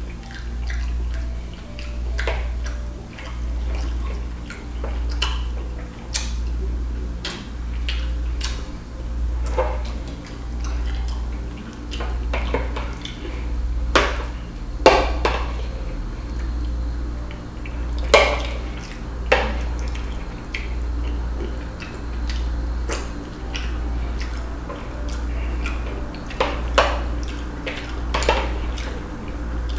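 Metal spoon clinking and scraping against a glass bowl during eating, in sharp irregular clicks. Underneath runs a low hum that swells and fades about every second and a half.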